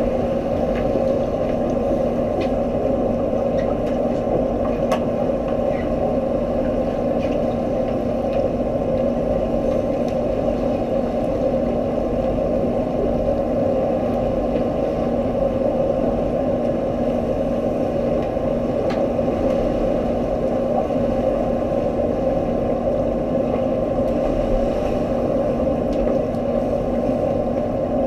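Steady underwater pool noise picked up by a camera in a waterproof housing on the pool floor: an even, muffled drone with a steady low hum and a few faint clicks.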